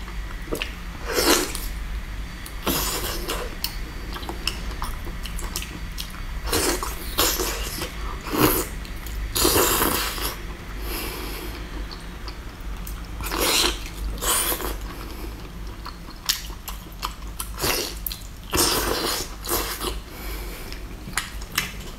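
Close-miked eating sounds of a person biting and chewing braised octopus: irregular short bursts of mouth noise, some coming in quick runs, with pauses between.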